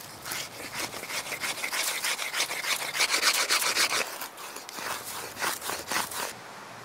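Wooden hand-drill spindle scraped back and forth against a flat stone to shape it, a fast rasping rub of about four strokes a second. It stops abruptly near the end.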